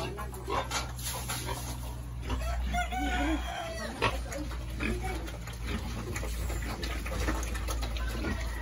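Hungry pigs in a pen making calls, with a long drawn-out animal call about two and a half seconds in that fits a rooster crowing, and a few knocks.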